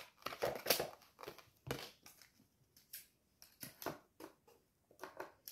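Scissors snipping at a plastic label on a new skateboard, with crinkling plastic. The sound is a faint, irregular run of short snips and crackles.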